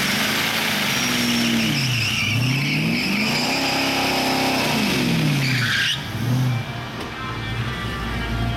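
Ford Mustang 5.0 V8 in a drag-strip burnout: the engine revs up and down several times while the rear tyres spin and squeal. The tyre noise stops about six seconds in, leaving the V8 running low and steady as the car rolls forward.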